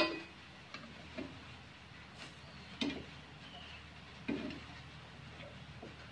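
Metal spatula clicking and scraping against a nonstick frying pan as a pancake is lifted to be flipped: a handful of short sharp taps, the loudest right at the start.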